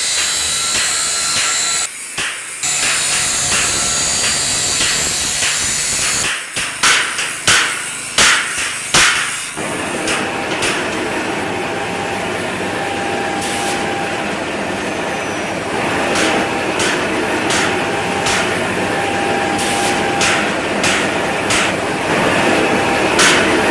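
Repeated hammer strikes, a quick series of blows about six seconds in and more scattered strikes in the second half. Steady noise of running machinery sets in about ten seconds in.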